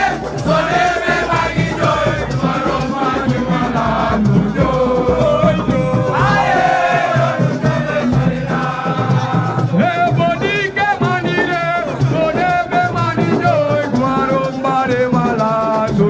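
Music with singing voices over a continuous, dense backing, with a rattle-like percussion in it.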